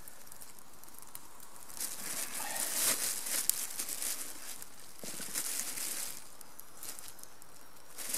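Thin plastic bag crinkling and rustling as it is handled, in two spells starting about two seconds and five seconds in, with one sharp click during the first.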